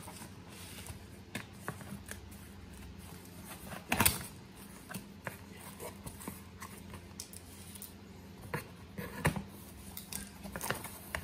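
Cardboard shipping box being opened by hand: packing tape peeled and cardboard flaps pulled apart, scattered rustles and knocks with one louder burst about four seconds in.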